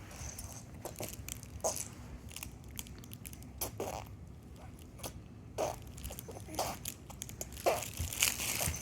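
A baby making mouth noises: a scattered string of short, soft smacks and raspy bursts.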